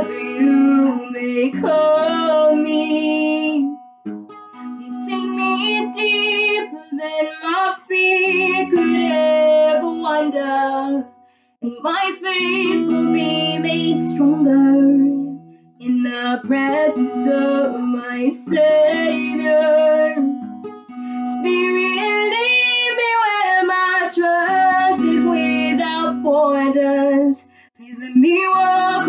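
A woman sings a worship song while strumming an acoustic guitar. The lines come in phrases of several seconds with short breaks between them, over steady guitar chords.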